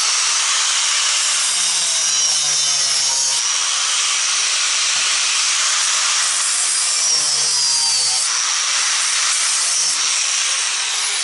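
Angle grinder with a thin cut-off disc running at speed and cutting into the brass crimp ferrule on a propane regulator hose. Its steady high whine sags in pitch twice as the disc bites.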